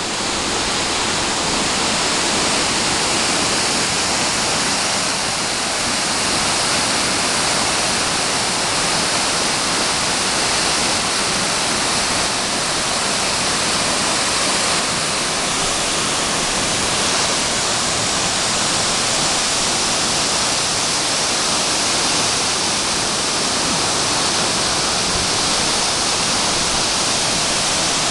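Waterfall and several smaller cascades pouring into a plunge pool: a steady, even rush of falling water.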